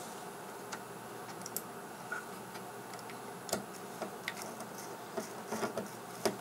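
Irregular small clicks and taps of a screwdriver and fingers working on the open metal chassis of an audio interface while a replacement headphone-socket board is screwed in, over a steady faint hiss. The clicks come sparsely at first, then bunch together in the second half, with the sharpest one near the end.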